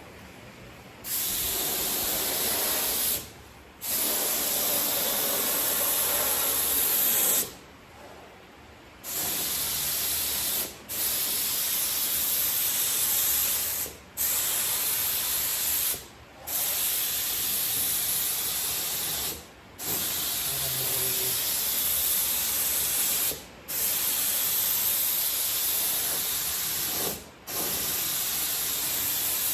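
Air spray gun spraying polyester high-build primer: a series of long hissing passes of a few seconds each, with brief pauses where the trigger is released between strokes.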